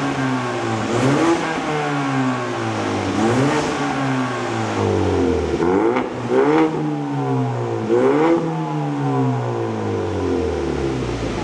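2022 Ford Mustang EcoBoost's turbocharged 2.3-litre four-cylinder, fitted with an aftermarket RES full-system exhaust, revved while parked in about five quick blips. Each blip rises in pitch and falls back, and the engine settles toward idle near the end.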